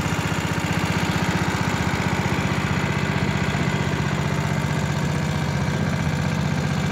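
Boat's outboard motor running at a steady speed, a fast, even pulsing with no change in pitch.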